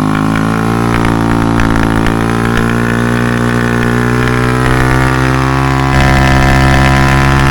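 Honda CB motorcycle engine running through an aftermarket SC Project full-system exhaust, held at steady revs with a loud, even exhaust note that steps up a little in loudness near the end.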